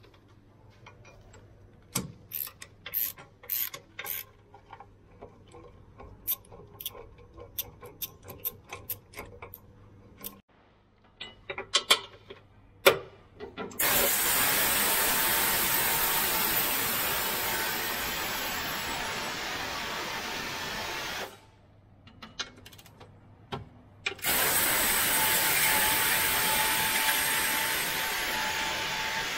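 A ratchet clicking and metal tools clinking on bolts, then a handheld power ratchet running in two long spells, about seven seconds and then about five, undoing the bolts of an under-body bash plate cover.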